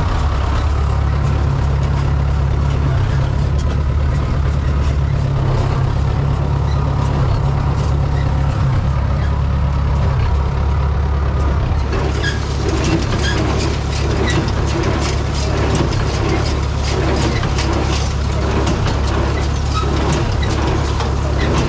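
Tractor engine running steadily while working a hay baler. About halfway through, a regular knocking beat comes in over the engine, roughly one knock every 0.7 seconds, typical of the baler's working strokes.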